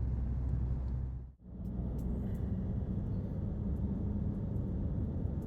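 Steady low rumble of a moving vehicle, which cuts out abruptly about a second and a half in and then resumes.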